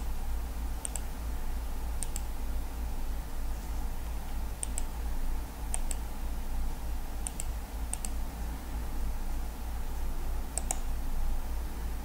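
Computer mouse clicking: about a dozen sharp clicks at irregular intervals, many in quick pairs, over a steady low hum.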